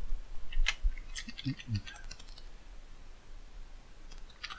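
Typing on a computer keyboard: a single keystroke about half a second in, a quick run of keystrokes over the next second or so, then a pause and a few more keystrokes near the end.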